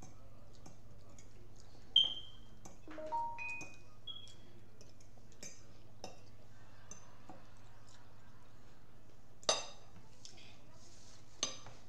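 Metal forks clinking and scraping on ceramic dinner plates during a meal: a few separate sharp clinks, some with a brief ringing tone. The loudest come about two seconds in and about two seconds before the end.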